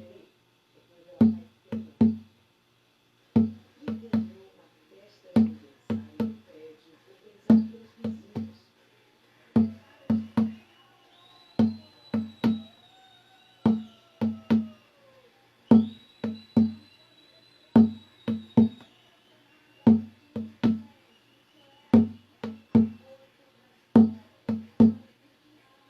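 A hand drum beaten in a steady repeating pattern: small groups of two or three low, resonant strikes about every two seconds. Between about 10 and 19 seconds in, faint high wavering tones glide over the drumming.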